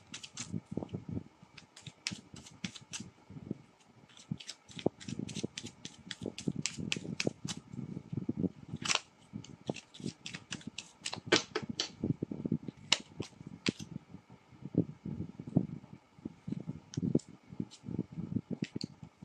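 Tarot deck shuffled by hand: a long, irregular string of quick card clicks and snaps, followed in the second half by cards dealt onto a wooden table.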